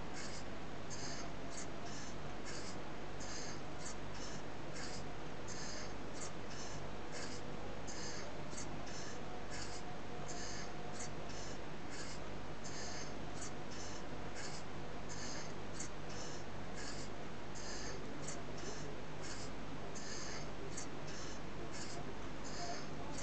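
Brass model V-twin steam engine running slowly, its exhaust puffing about twice a second over a steady hiss.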